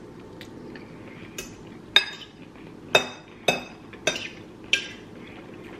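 A metal fork clinking and scraping against a ceramic plate while food is picked up, with about five sharp clinks in the second half.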